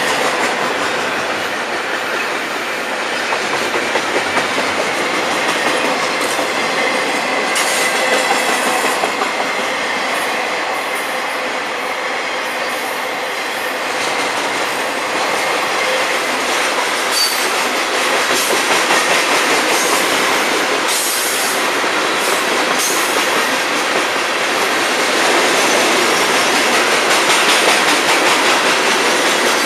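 Freight cars of a long train (double-stack container cars, then coal hoppers) rolling steadily past at close range: a continuous rumble of steel wheels on rail with clickety-clack over the joints, a thin wheel squeal, and scattered sharper clanks.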